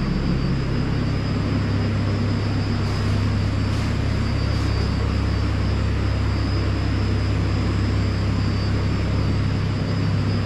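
Steady machine drone with a strong low hum and an even hiss, like a motor-driven fan running continuously; the low hum settles to a lower, fuller pitch about a second in.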